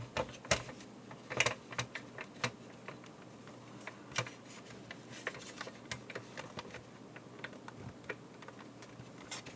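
Irregular light clicks and taps of small plastic parts of a PTZ camera being handled and pressed together by hand, as a part that doesn't yet sit right is worked into place.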